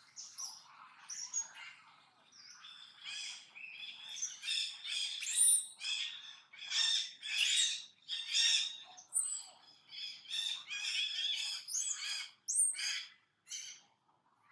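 Capuchin monkey giving a long run of high-pitched chirps and squeaks, many short calls in quick succession with some sharp upward sweeps in pitch. The calls grow thicker and louder after the first two seconds.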